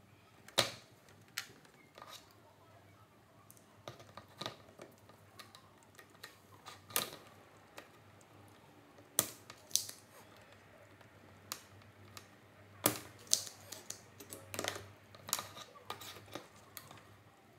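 Irregular sharp clicks and taps of hand tools and small parts being handled at a workbench, during the removal of the swollen electrolytic capacitors from an LCD monitor's power supply board.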